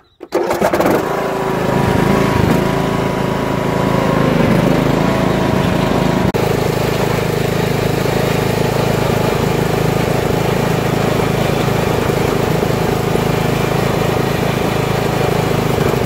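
Riding lawn tractor's engine starting up about a third of a second in, then running steadily as the tractor is driven across the grass, its pitch settling after the first few seconds.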